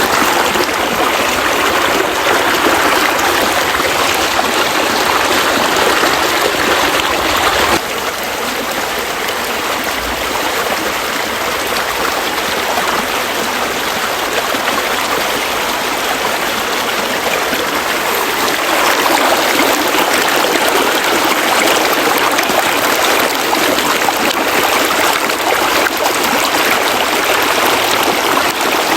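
Flowing water, a steady rushing with no pauses. It drops a little in level about eight seconds in and grows fuller again after about nineteen seconds.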